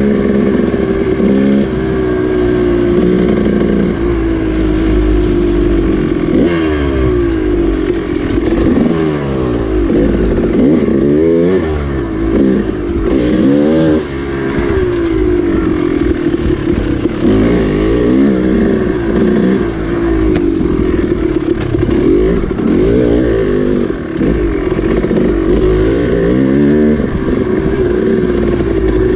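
KTM dirt bike engine under way, revving up and falling back again and again as the throttle is opened and rolled off through the gears.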